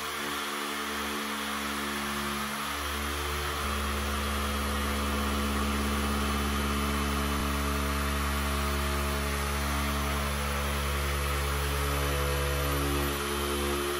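Hand-held electric sheet-metal shear running as it cuts through the steel roof panel of a VW Polo 2F: a steady motor hum that gets louder and settles about four seconds in.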